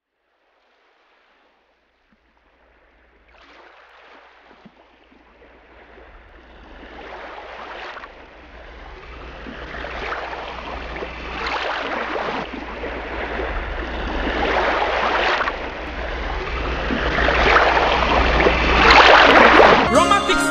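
Ocean waves washing in, a swell every second or two, fading up from silence and growing steadily louder over a low steady hum.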